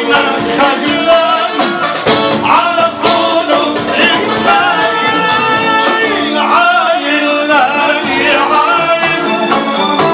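Live band music for dancing, with a singer over keyboard, drum kit and darbuka hand drums.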